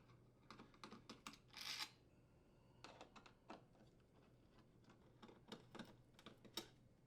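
Faint, irregular clicks and light scrapes of a Phillips screwdriver unthreading the screws that hold a dishwasher's inner and outer door panels together.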